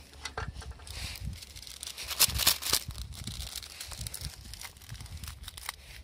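Plastic seasoning sachet from a cup noodle crinkling in the hand and being torn open, in a run of short crackles with the loudest tearing about two and a half seconds in.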